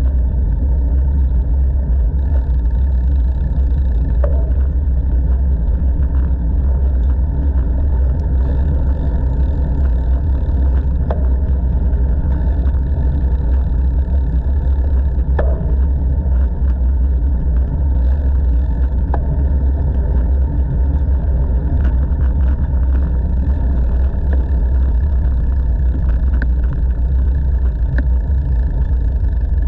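Steady, loud, low wind noise on a bicycle-mounted action camera's microphone while riding along a paved path, with a few faint ticks.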